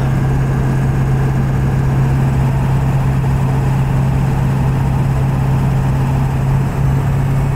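Vehicle cabin at highway cruise: a steady low engine hum over road and tyre noise.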